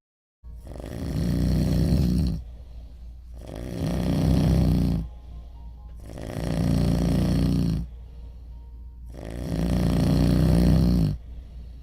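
Loud, rhythmic snoring: four long snores, one about every two and a half to three seconds, each swelling and then breaking off abruptly.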